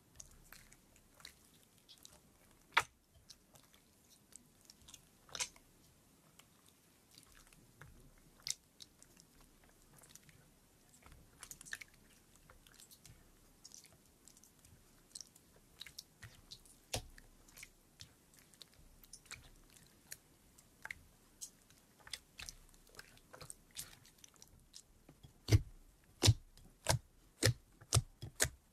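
Slime being mixed and kneaded by hand in a bowl: scattered sticky clicks and squelches, turning near the end into a quick run of loud pops, about two a second, as fingers press into the thickened slime.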